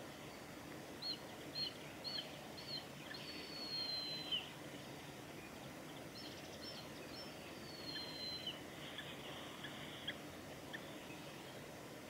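Juvenile mountain hawk-eagle calling: a run of short, high whistled notes, then a long, slightly falling whistle. A second run of notes with another long whistle comes about six seconds in.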